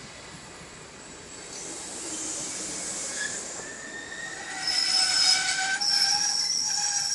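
SBB passenger coaches rolling past with their steel wheels squealing on the rails. Several steady high squeal tones set in about three seconds in and get louder toward the end, over a rising rolling hiss.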